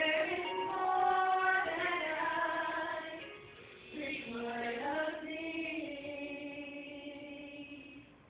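Female voices singing a gospel praise song, picked up on a mobile phone held face down. A first phrase is followed by a brief break, then a second phrase that ends in one long held note, fading out near the end.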